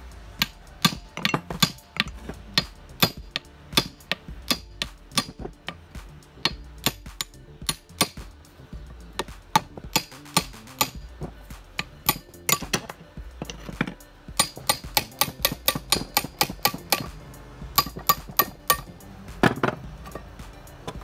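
Socket ratchet clicking as it is swung back and forth to turn a bolt, in short quick runs of sharp metallic clicks with single clicks between them.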